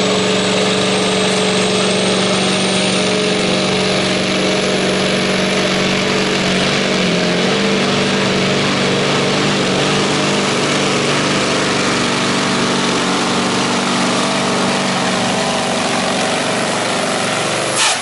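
Renault pulling truck's diesel engine running flat out as it drags the weight sled, a steady loud drone with a thin high whine rising in pitch over the first few seconds.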